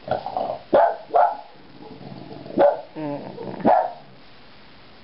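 Boston terrier barking at fireworks going off outside: about five gruff barks over four seconds, with a low grumbling growl between them.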